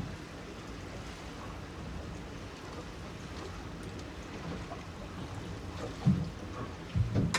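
Choppy sea washing against a small boat's hull, a steady hiss, with a couple of low thuds near the end.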